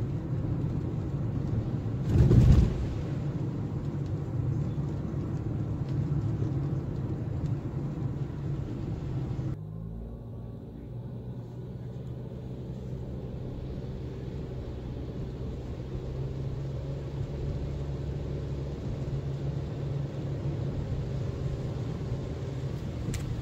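Steady low rumble of a car's engine and tyres on a wet road, heard inside the car. About two seconds in there is one loud thump as the car goes over a railroad crossing. Around ten seconds in the sound suddenly turns duller and quieter.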